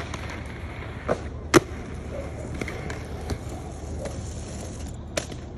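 Skateboarding on concrete: a steady rolling rumble of wheels with sharp board clacks, the loudest about a second and a half in and another near the end.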